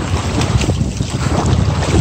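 Wind buffeting the microphone over water rushing and splashing along the hull of a Nordica 20 sailboat under way under sail, heard close to the waterline.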